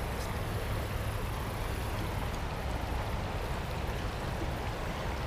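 Steady rushing of a shallow creek running over rocks, with a low rumble underneath.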